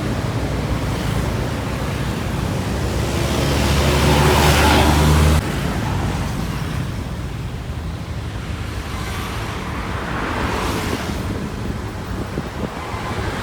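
Roadside traffic: a bus's engine grows louder as it passes close, then cuts off abruptly about five seconds in. Steady road noise follows, with further vehicles passing.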